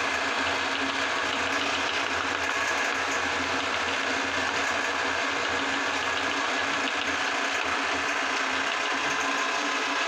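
Electric meat grinder's motor running steadily under load as it grinds chocolate balls and pushes them out through the plate in strands.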